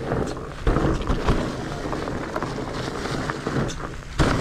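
Mountain bike rolling downhill over dirt and fallen leaves: steady tyre and drivetrain rattle, with hard thumps from bumps about two-thirds of a second in, just over a second in, and near the end.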